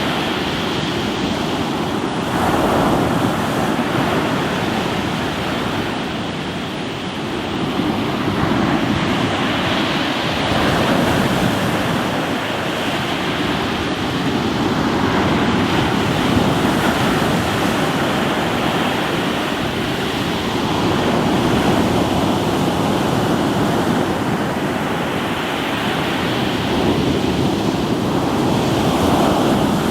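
Sea waves washing onto a rocky shore: a continuous rushing surf that swells and eases every several seconds, with no sharp crashes.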